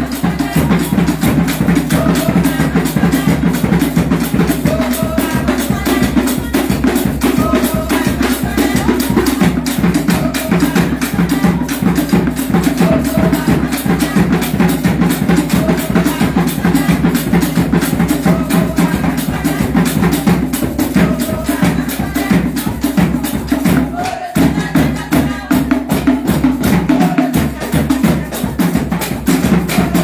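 Live drums playing a fast, steady, dense rhythm, with voices singing over them; the beat breaks off for a moment about three-quarters of the way through.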